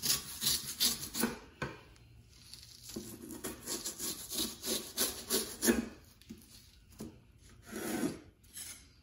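Duct knife sawing back and forth through the fiberglass insulation of duct board, slicing it off the foil facing of the flap, with quick rasping strokes of about three or four a second at first, then softer strokes and one longer scrape near the end.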